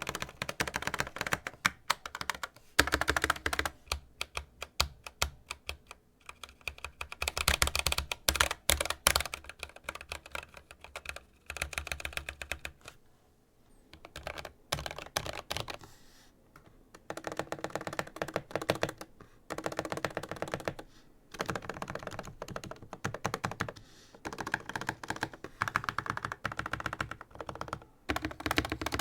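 Mechanical keyboard with lubed Gateron Yellow linear switches and PBT keycaps being typed on in fast runs of keystrokes, with short pauses between bursts.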